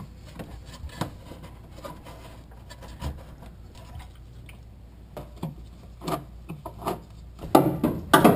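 Hands working the fuel hoses and fittings on a truck's fuel tank: scattered small clicks and rubbing of plastic and rubber parts, with a few louder knocks near the end.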